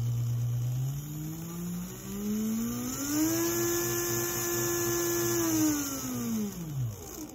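Freshly rebuilt and greased Mantua/Tyco Mu2 model-train motor test-running in its power truck off a transformer. A low hum gives way to the motor's whine, which rises in pitch over about two seconds as it speeds up. The whine holds steady, then falls as it slows and stops about seven seconds in.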